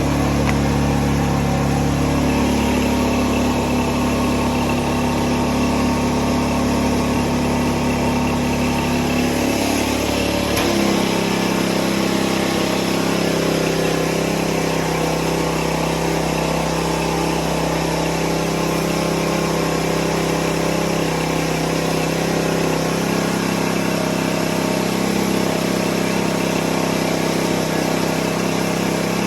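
Small gas engine of a 2.5 GPM pressure washer running steadily. About ten seconds in, its note drops and settles to a lower, steady pitch.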